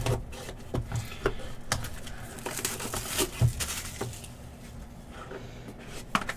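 Plastic shrink wrap being torn and peeled off a cardboard trading-card hobby box, crinkling, with scattered light clicks and taps from the box. The cardboard lid comes off near the end.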